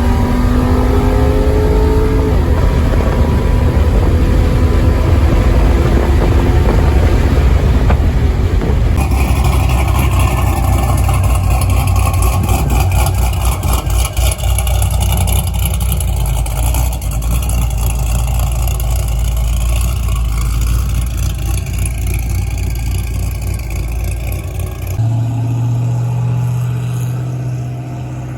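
A 2006 Pontiac GTO's 6.0 LS2 V8, fitted with a Brian Tooley Racing Stage 3 cam and American Racing long-tube headers, running. It revs up in the first couple of seconds, then holds a steady deep exhaust note. The sound changes abruptly about 9 and 25 seconds in.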